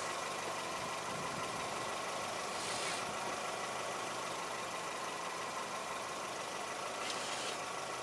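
A steady engine hum like an idling motor, with a constant faint whine. Two brief scraping rustles come about three and seven seconds in.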